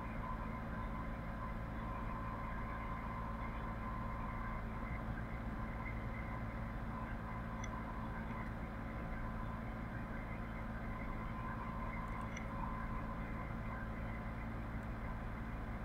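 Steady low hum and hiss of background noise, with several faint steady tones and a few faint ticks.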